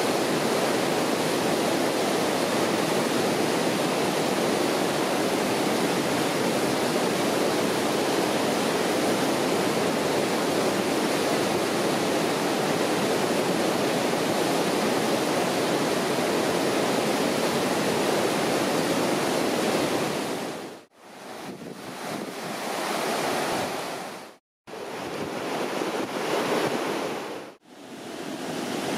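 Fast white-water river rapids rushing steadily. About 21 seconds in the sound breaks off, and a few short spells of rushing noise follow, each swelling up and cutting off suddenly.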